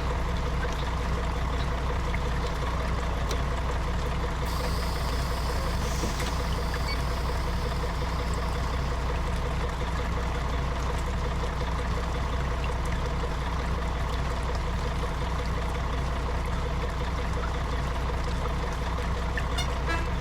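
Intercity coach bus running, heard from inside the passenger cabin: a steady low engine and road drone with an even hiss over it. A short run of quick ticks comes near the end.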